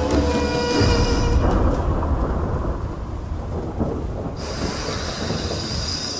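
Thunderstorm sound effect: a low thunder rumble with a rain-like hiss, taking over as a music sting dies away about a second in. The hiss swells again past the four-second mark, and the whole fades down.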